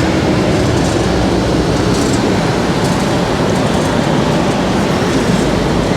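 Steady city street noise with traffic running, an even rush of sound with no single event standing out.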